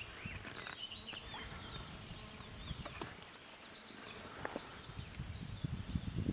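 Small songbirds chirping and twittering, many short quick calls overlapping, over a low outdoor rumble with a few light clicks.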